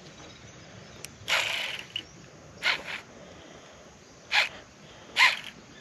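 Baitcasting reel's drag giving line in short, separate bursts as a hooked fish pulls, the loudest near the end.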